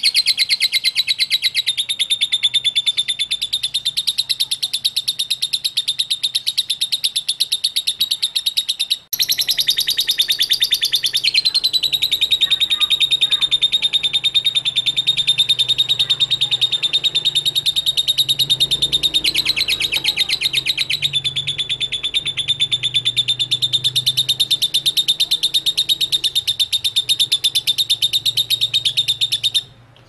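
Fischer's lovebird singing a long, rapid, almost unbroken chatter of high notes, the extended song that lovebird keepers call ngekek. There is one brief break about nine seconds in.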